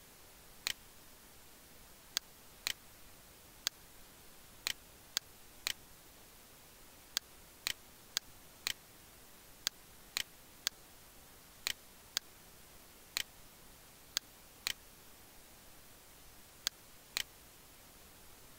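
Computer mouse button clicking: about twenty sharp, separate clicks, many in pairs about half a second apart, over a faint steady hiss.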